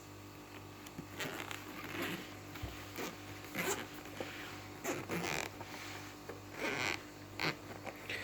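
Zipper on a gimbal carry case being pulled open in a series of short, uneven rasping strokes.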